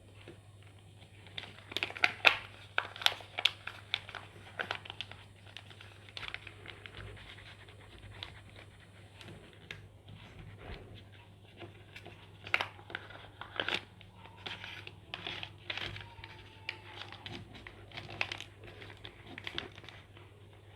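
Craft paper being folded and creased by hand: irregular crinkles and rustles, in clusters about two seconds in and again around twelve to sixteen seconds, over a faint steady low hum.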